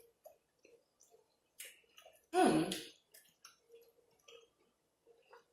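A single loud burp, under a second long, about halfway through, among faint chewing and mouth clicks.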